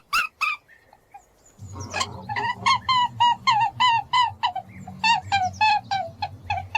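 An animal giving a rapid series of short, pitched honking calls, about three or four a second, breaking off for about a second near the start, over a low steady hum.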